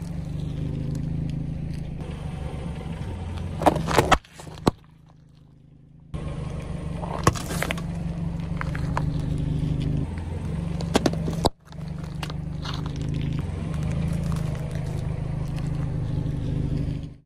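A car engine running at a steady low hum while the slowly rolling tyre crushes soft objects, such as yogurt squeeze pouches, with scraping and crackling. Sharp cracks and pops stand out around four, seven and eleven seconds in, and the hum drops away briefly after the first.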